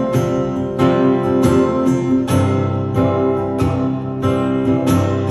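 Acoustic guitar strummed in steady ringing chords, a strong stroke roughly every three-quarters of a second with lighter strums between.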